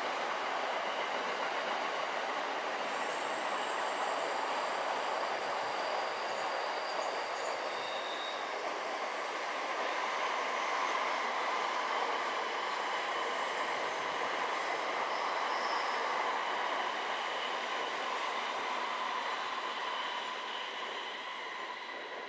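A train running past on the tracks: a steady rolling rush with faint high wheel-squeal tones coming and going, fading away near the end.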